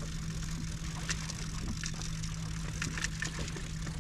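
A boat motor running steadily with a low hum, with a few faint light clicks over it.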